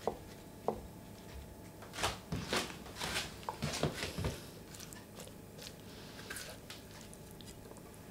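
Two light clicks with a short ring, chopsticks against a ceramic bowl. Then, about two seconds in, a couple of seconds of clattering and scraping as a spatula scoops chickpeas in a metal pot.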